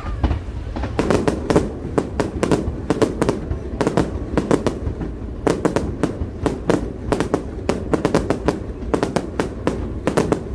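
Fireworks set off over the water, going off in a rapid string of sharp bangs and crackles, several a second.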